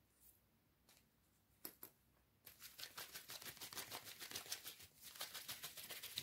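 Tarot cards being shuffled in the hands: a few soft taps, then about two and a half seconds in a quick run of light card clicks for several seconds.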